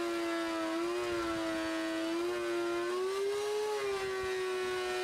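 DeWalt benchtop thickness planer running with a rough board fed through it: a steady high motor whine whose pitch sags and lifts slightly as the cut loads the motor.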